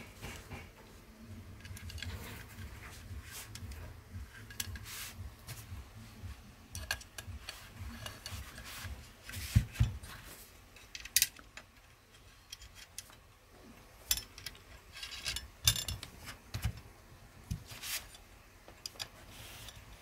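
Parts of an EDgun Matador air rifle being handled and fitted into its metal frame by hand: scattered clicks, taps and rubbing, with a sharper knock about ten seconds in.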